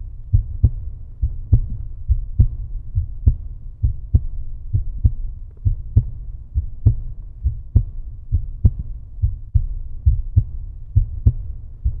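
Outro background music carried almost entirely by its bass: a steady low beat, with a strong hit a little under once a second and lighter hits between.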